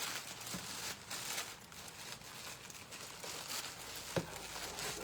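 Packaging crinkling and rustling in irregular bursts as craft supplies are handled and unpacked.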